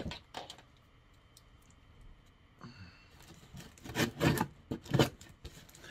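The point of a pen scraping and tearing through packing tape on a cardboard box. A handful of quick, loud rasping strokes come in the second half, after a quiet start.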